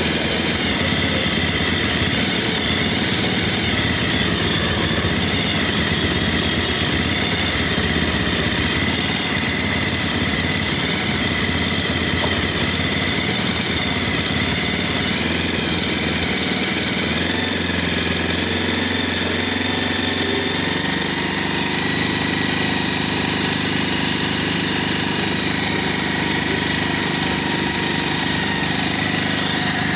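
Bajaj Pulsar 220F's single-cylinder engine idling while its carburettor is tuned to cure missing at low rpm. The idle note shifts about seventeen seconds in and runs more evenly after that.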